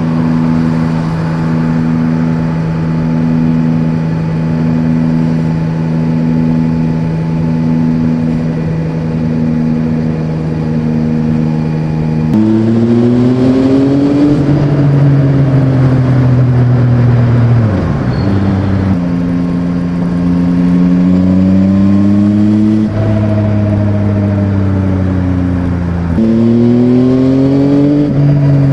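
Yamaha Tracer 9's 890 cc CP3 inline-triple engine under way. It holds steady revs at first, then from about twelve seconds in the revs drop sharply at gear changes and climb again under throttle, a few times over. The engine is louder while the bike passes through a road tunnel.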